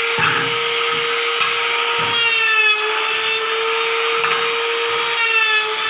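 Electric wood trimmer (compact router) running at high speed with a steady high-pitched whine, its pitch sagging briefly twice as the bit takes load in the wood.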